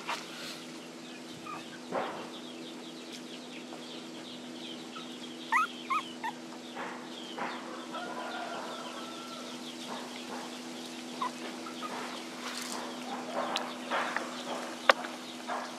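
Chickens clucking, with short high chirps scattered through and a cluster of quick chirps around the middle, over a steady low hum. A single sharp click sounds near the end.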